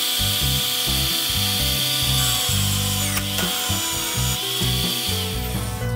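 Electric drill in a drill stand running with a steady high whine as its bit drills into a metal coupling nut held in a plywood vise. There is a click about three seconds in, and near the end the whine slides down in pitch and stops as the drill spins down.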